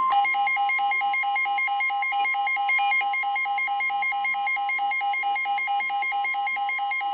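NOAA Weather Radio receiver sounding its alert: rapid beeping, about four beeps a second, over a steady single-pitch warning alarm tone. It signals that a warning, here a severe thunderstorm warning, is being broadcast.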